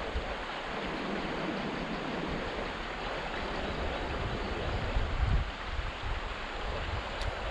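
River current rushing steadily over a shallow riffle. Low rumbles of buffeting on the microphone run under it, with the loudest burst about five seconds in.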